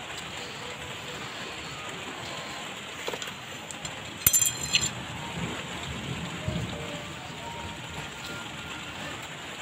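Steady rain falling on a garden, with a brief burst of clicking about four seconds in.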